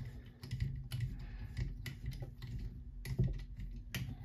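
Irregular light metal clicks and taps, several a second, as a valve spring compressor and pliers are handled on the engine's cylinder during valve removal. A low steady hum runs underneath.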